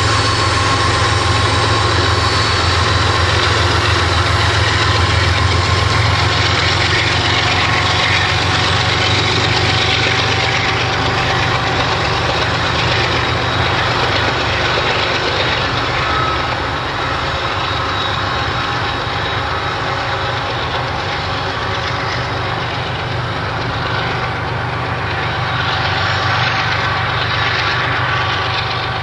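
Manifest freight train running past: a steady rumble from the diesel locomotives and rolling cars, with a few steady higher tones over it. It eases slightly in level about halfway through.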